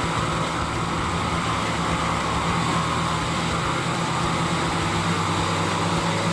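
Large wood chipper running steadily, its engine giving a constant drone.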